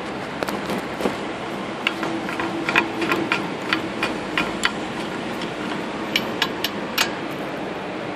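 Wheel nuts being threaded by hand onto a steel wheel's studs with a loose socket: irregular light metallic clicks and taps, with a quick run of four near the end, over a steady background hiss.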